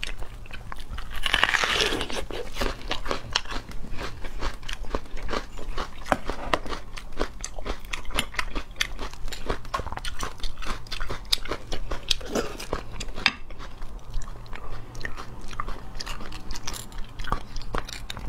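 Close-miked eating of braised beef marrow bones: wet chewing and biting with a dense run of small mouth clicks, and a louder, noisier burst about a second and a half in.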